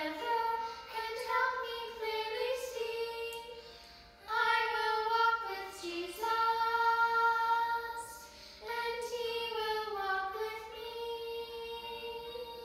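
A woman and a child singing a Primary children's song together in several phrases, with long held notes.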